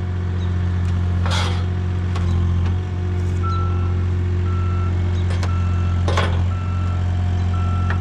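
Avant compact loader's engine running steadily as its boom and claw pull a swing frame out of the ground, with a warning beeper sounding about once a second from about three seconds in. Two brief rasping noises stand out, about one and six seconds in.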